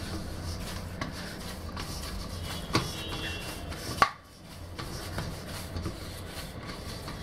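Hands kneading soft pearl millet (bajra) dough in a steel plate: quiet pressing and rubbing of the dough against the metal, with two sharp knocks about a second apart near the middle.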